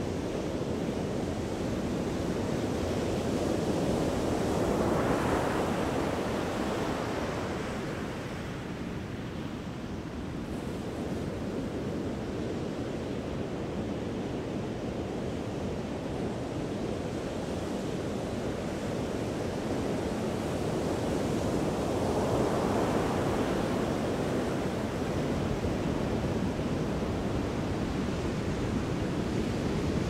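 Large ocean waves breaking in a continuous rush of surf, swelling twice: once about five seconds in and again about two-thirds of the way through.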